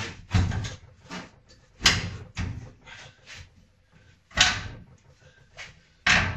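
Irregular metal clunks and knocks as steel parts are handled and set against a stripped car body shell, about eight in all, the loudest about two seconds in and again about four and a half seconds in.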